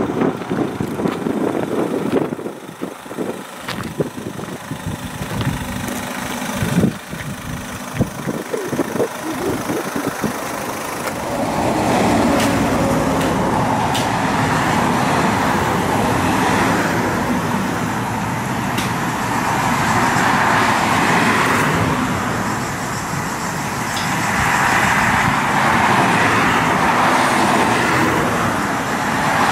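Car on the move: road and wind noise, uneven with a few knocks at first, then a steady, louder rushing from about eleven seconds in.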